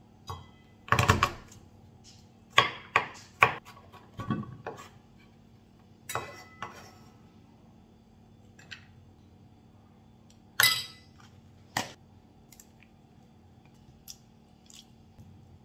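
Chef's knife knocking on a wooden chopping board a handful of times as a garlic clove is crushed and roughly chopped. Later come two louder clinks and a few small ticks of metal utensils against a stainless steel mixing bowl as the garlic and gochujang go in.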